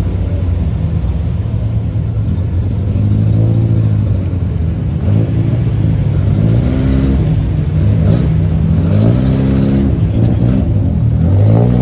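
A car engine idling and being revved in short blips, about half a dozen times, the pitch rising and falling with each rev.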